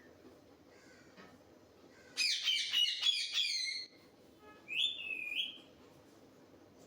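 Pet parrot calling: a rapid run of squawking calls for about two seconds, then after a short pause a second, shorter call ending in a held note.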